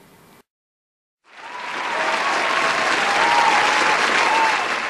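Crowd applauding, with a few voices calling out over it, starting after a short silence about a second in.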